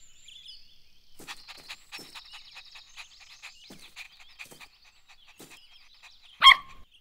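A cartoon puppy gives one short, loud bark near the end, over faint outdoor chirping and ticking.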